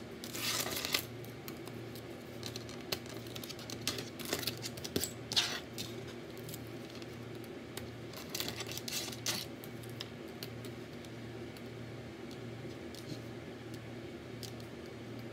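Wooden craft sticks clicking and scraping lightly as they are set down and shifted about on a hard countertop, in scattered clusters that thin out after about nine seconds, over a steady low hum.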